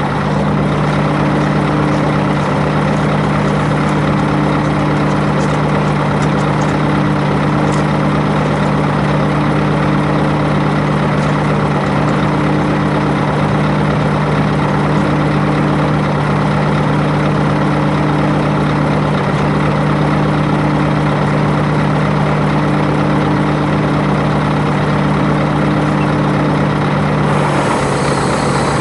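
Scania truck's diesel engine idling steadily. Near the end its note drops a little and a hiss comes in.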